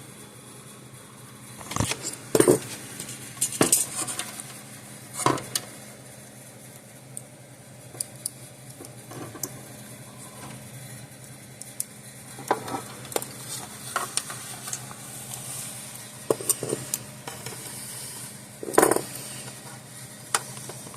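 Hand tools and small metal parts clicking and clattering as wiring connectors are worked on by hand, in irregular bursts with a few louder knocks, over a steady low hum.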